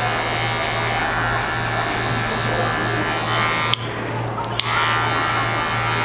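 Electric hair clipper fitted with a guard comb, running with a steady hum as it cuts short hair. About four seconds in, the sound briefly drops between two light clicks.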